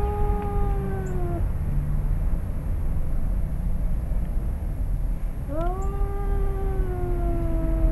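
Domestic cat giving long, drawn-out threat yowls at another male cat in a standoff before a fight. One yowl trails off about a second in; a second one starts about five and a half seconds in and slides slowly down in pitch.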